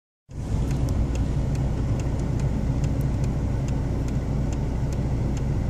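Steady low rumble of a car's engine and road noise heard from inside the cabin, with a light, regular ticking about two or three times a second.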